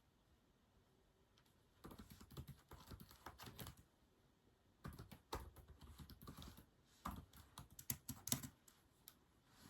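Typing on a keyboard: three runs of quick key clicks, each a second or two long, with short pauses between them.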